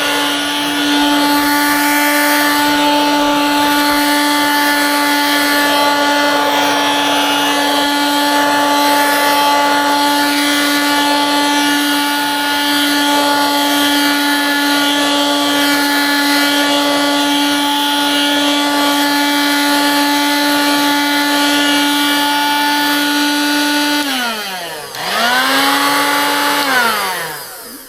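Dirt Devil Handivac hand vacuum running steadily with a high motor whine as it sucks up dust from a mattress. About 24 seconds in it is switched off and the whine falls in pitch, then it is switched back on for a couple of seconds before winding down again at the end.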